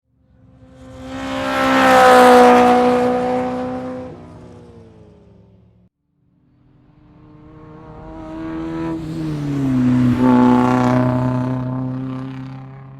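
Two race car pass-bys at speed, one after the other. Each engine note swells as the car approaches, drops in pitch as it goes past, and fades away. The first cuts off suddenly about halfway through.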